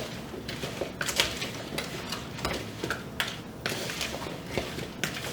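Irregular light clicks and taps, a few a second, from kitchen handling as olive oil is added to potatoes and carrots in a bowl.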